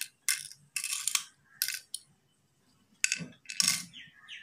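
Cowrie shells dropped one by one into the hollow cups of a wooden pallanguzhi board: a series of short, sharp clicks and small clatters as each shell lands, with a pause partway through.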